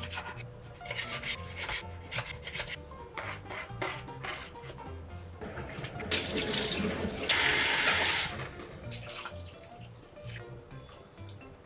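Chef's knife slicing squid on a plastic cutting board, a series of short taps and knocks. About six seconds in, a kitchen tap runs hard into a stainless steel sink for about two seconds while hands are washed, followed by quieter water sounds as water is poured into a pot.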